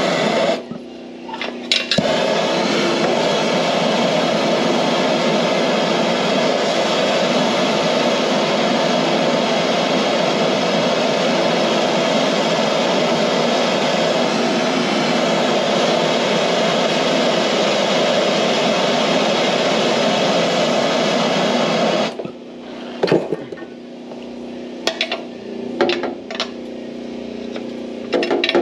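Handheld gas torch burning with a steady hissing flame as it heats the exhaust downpipe to loosen a seized fitting. It drops out briefly just after the start, comes back about two seconds in, and shuts off about 22 seconds in. A few light metal clinks and knocks of a wrench on the exhaust follow.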